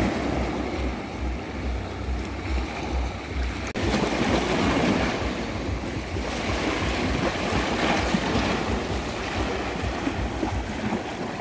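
Sea waves washing against jetty rocks, with wind rumbling on the microphone.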